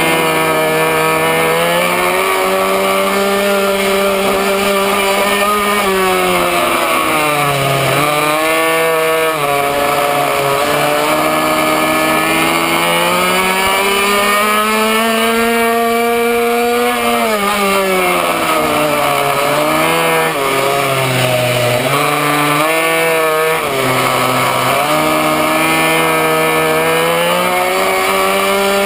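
Racing minimoto's small two-stroke engine heard from on board at full race pace. The revs climb long and high, then drop sharply and pick up again several times through the lap.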